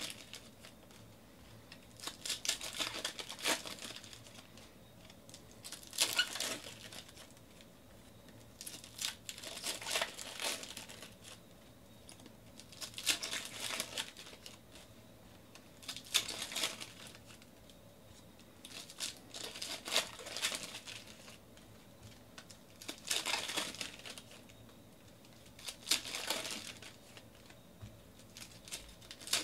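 Foil wrappers of 2019 Donruss Optic baseball card packs crinkling and tearing as they are ripped open by hand, in a short burst about every three seconds.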